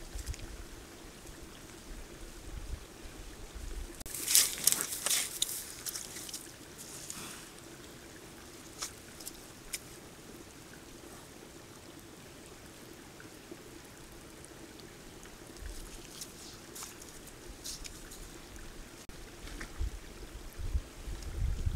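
Sambar stag wallowing in a muddy pool, with a burst of splashing and sloshing about four seconds in and scattered smaller splashes and squelches after. A faint steady hum runs underneath.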